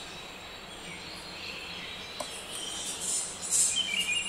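Outdoor ambience: a steady background hiss with high chirping, busier near the end.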